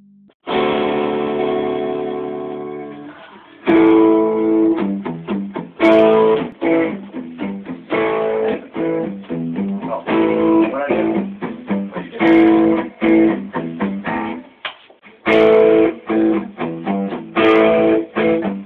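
Electric guitar playing: one chord rings out and fades over about three seconds, then a choppy, stop-start riff of short chords and notes with brief pauses between phrases.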